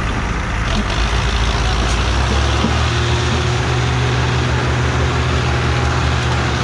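Belarus 510 tractor's diesel engine running under heavy load as it pulls a loaded sugarcane trolley; the engine note picks up about two seconds in, then holds steady.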